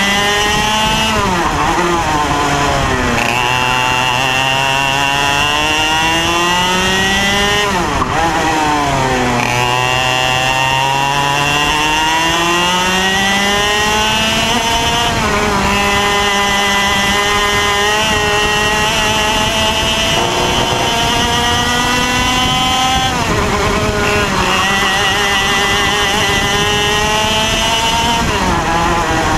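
IAME X30 Junior 125cc two-stroke kart engine at racing speed, heard onboard: the revs climb steadily along each straight, then drop sharply as the driver lifts for a corner, several times over.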